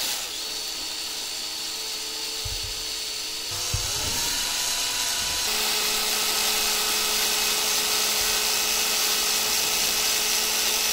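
Cordless drill running with a fine bit, drilling out hinge holes in a 3D-printed FDM plastic part. The motor's whine is steady, shifting in pitch about four seconds in and again a little later.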